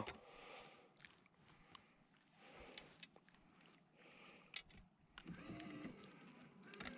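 Near silence, with faint scattered clicks and rustles of hands working a fishing hook out of a fish's lip, and a brief low hum about five seconds in.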